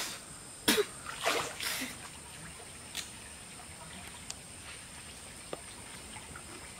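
Creek water splashing and sloshing several times in the first two seconds as a man moves through it, then only a few faint clicks.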